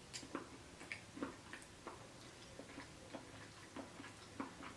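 Faint, irregular small clicks and taps of eating utensils handling food in takeout containers, a couple of clicks a second.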